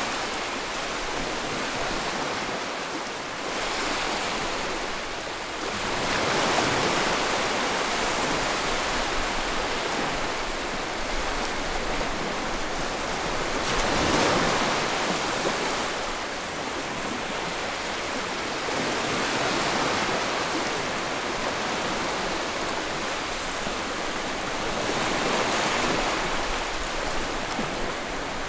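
Sea waves breaking and washing on the shore, a continuous rush of surf that swells and eases every six seconds or so.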